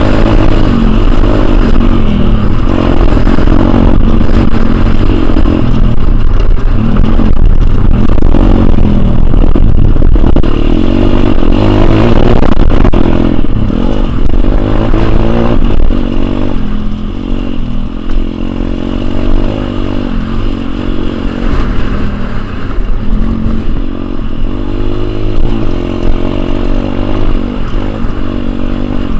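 Pit bike engine revving hard as it rides a dirt motocross track, the pitch repeatedly rising and falling as the rider opens and closes the throttle and changes gear. It runs loud for the first half and eases off a little about halfway through.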